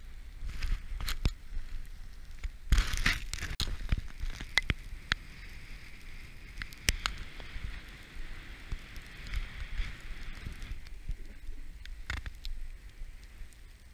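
Snowboard riding down a snow slope: the board's hissing scrape over the snow, with scattered crackles and knocks, and wind rumbling on the microphone.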